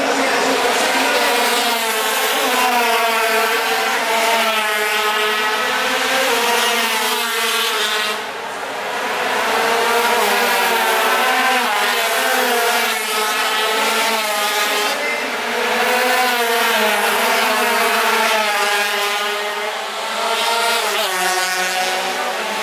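Racing motorcycle engines revving hard as the bikes pass, the pitch climbing through each gear and dropping at every shift, over and over.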